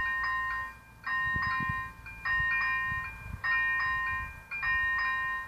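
Czech level-crossing warning signal's electronic bell ringing in a repeating chime pattern, a group of strikes about every 1.2 seconds. It sounds while the red lights flash, warning that a train is approaching.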